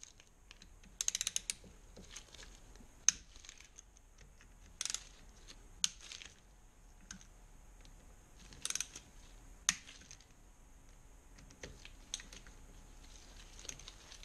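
Hand socket ratchet clicking as it undoes the M8 bolts of a motorcycle engine's alternator casing: short runs of rapid ratchet clicks about a second, five and nine seconds in, with single sharp clicks and clinks of the tool between.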